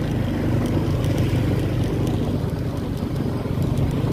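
Motorcycle engine running at a steady cruise while being ridden, a continuous low drone with rapid firing pulses.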